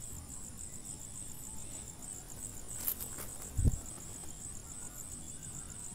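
Crickets chirping steadily in the background, a fast pulsing high trill. A couple of light clicks and a short low thump about three seconds in come from handling the paint sprayer's plastic nozzle.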